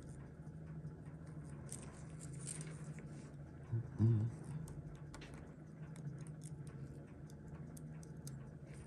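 Faint, scattered small clicks of steel tweezers and fingertips handling a Seiko 6139 chronograph watch movement in its holder, over a steady low hum. A brief low bump comes about four seconds in.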